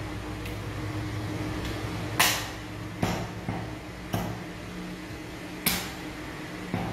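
Cleaver chopping meat on a wooden stump chopping block: about six sharp chops at uneven intervals, the loudest about two seconds in. A steady low hum runs underneath.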